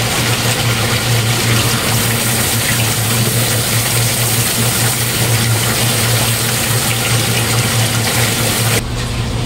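Water spraying from a garden hose nozzle onto a tiled floor to wash off dried pigeon droppings, a steady hiss over a steady low hum. The hiss drops away sharply near the end.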